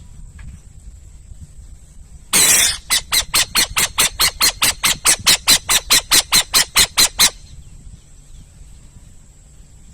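Owl calling: one loud, harsh screech, then a rapid run of about eighteen rasping, hissing notes at about four a second, which stops abruptly after a few seconds.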